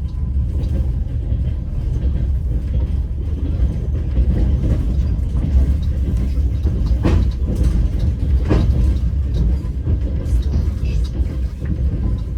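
A moving train heard from inside the carriage: a steady low rumble of the wheels on the rails. Two sharp clacks of the wheels crossing a rail joint come about seven and eight and a half seconds in.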